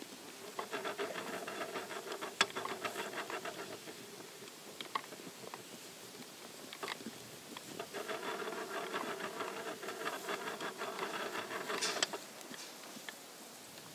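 Wooden skein maker on a spinning wheel being turned by hand as yarn winds off the bobbin, giving a rapid rattling clatter. The clatter comes in two stretches of a few seconds each with a pause between, and a few single sharp clicks.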